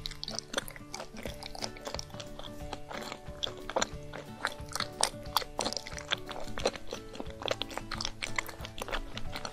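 Close-miked chewing of a soft cocoa-dusted chocolate sweet, with many quick wet mouth clicks, over steady background music.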